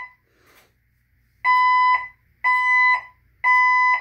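Fire alarm speaker strobes sounding the temporal-three evacuation tone: after a pause of about a second and a half, three steady half-second beeps, each with the same pitch. This is the stage-two evacuation signal.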